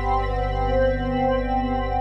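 Background music: a slow ambient piece of sustained, organ-like chords held steady.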